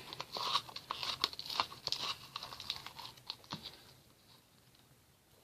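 A spoon scooping sticky homemade glue slime out of a cup: a quick run of small sticky clicks and crackles that thins out and fades about four seconds in.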